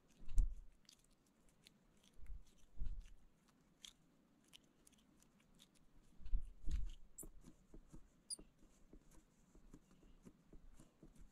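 Hands pressing soft modeling clay into a silicone mold against a tabletop: a few dull low thumps, the loudest about half a second in and just past the middle, with faint scattered clicks and squishing between them.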